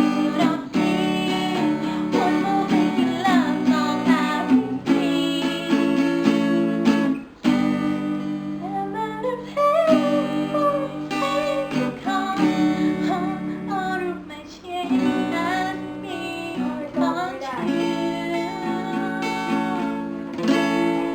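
Acoustic guitar strummed in steady chords under a voice singing a melody, a solo cover song performance.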